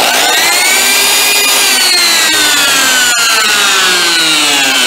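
Electric angle grinder switched on and running unloaded: the motor starts abruptly with a whine that climbs over the first second or so and then slowly sinks. It is a test run on newly fitted carbon brushes from another brand, filed down to fit the holders, and the grinder works.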